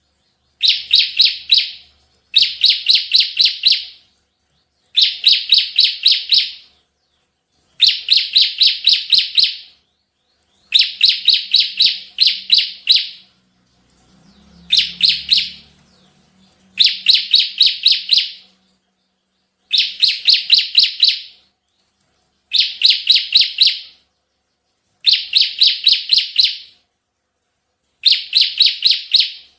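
Bar-winged prinia (ciblek) singing its rapid 'tembakan' song: short bursts of quick, high repeated notes, each burst about a second and a half long, repeated over and over with pauses of about a second between them.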